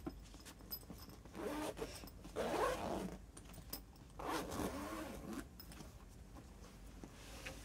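Zipper of a padded soft telescope carry case being pulled open around the lid in three pulls.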